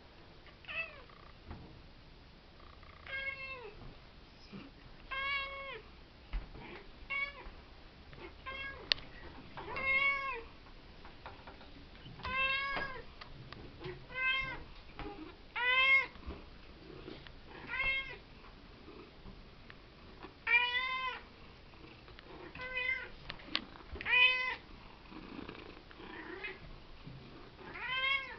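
Cat whinging: about fifteen short, complaining meows in a row, a second or two apart, each rising and then falling in pitch.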